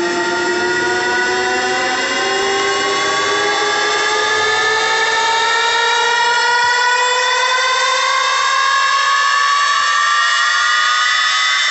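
A boAt Stone 1500 portable speaker playing a synthesised riser: one buzzy tone climbing slowly and steadily in pitch, the build-up of a DJ track before the drop.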